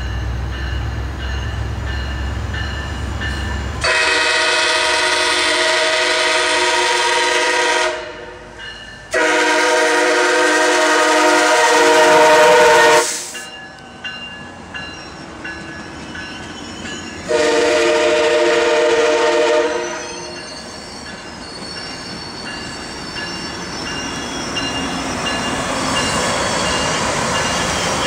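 A MARC commuter train's diesel locomotive approaches with a low rumble, then sounds its horn three times, several tones at once: two long blasts and a somewhat shorter third. Afterwards the passenger coaches roll past with a steady clatter of wheels on rails.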